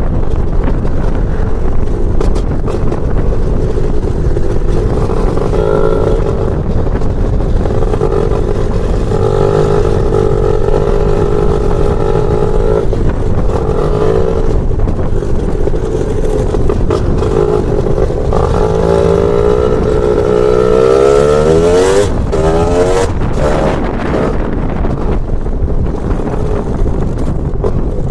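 Lambretta scooter's BFA 325-type two-stroke engine running on the move, its pitch rising and falling as the throttle is worked, with one long rising rev about two-thirds of the way through.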